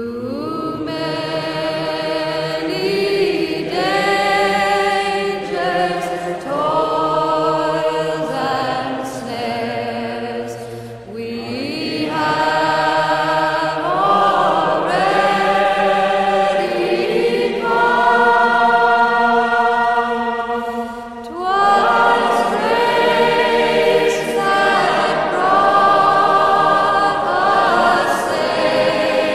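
Background music of a choir singing held chords that change every couple of seconds, swelling louder about twelve seconds in and again about twenty-one seconds in.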